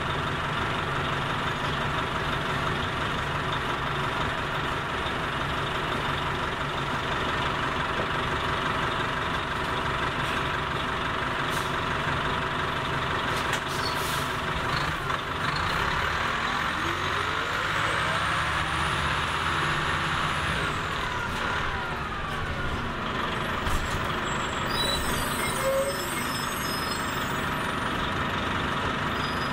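Orion V transit bus's diesel engine idling steadily, a low rumble with a whine above it. About halfway through, another engine sound climbs and then falls in pitch, and near the end there are two brief sharp sounds.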